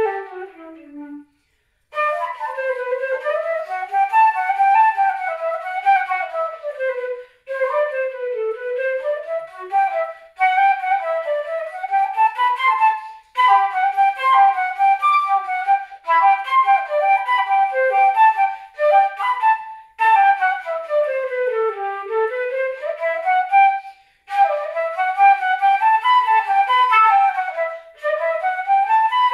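Unaccompanied concert flute playing a fast allegro in quick running passages that climb and fall, broken every few seconds by short pauses for breath.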